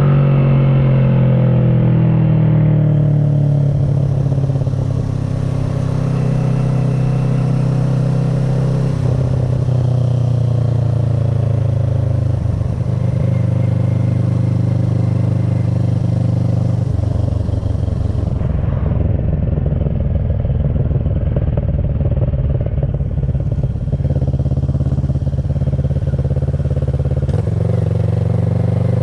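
2010 Kawasaki ER-6n's parallel-twin engine running under way through an SC Project carbon exhaust with the dB killer fitted. The engine note holds steady with its revs shifting up and down a few times.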